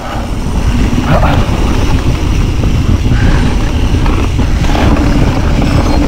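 E-mountain bike riding down a trail: wind rushing over the action camera's microphone and tyre rumble, building over the first second and then holding steady and loud.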